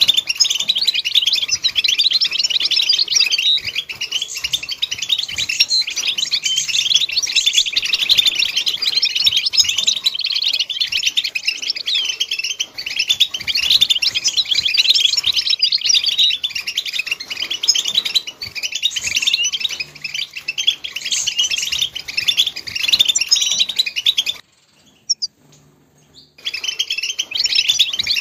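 European goldfinch song: fast, continuous twittering and trilling chirps. The song cuts out abruptly for about two seconds near the end, then resumes.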